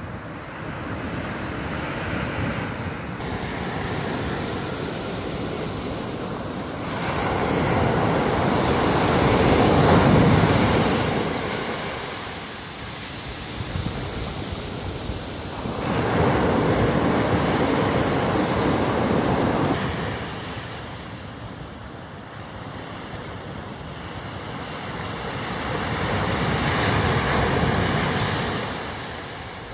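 Surf: waves breaking and washing up a beach. Three bigger waves swell and fade, about one every nine seconds.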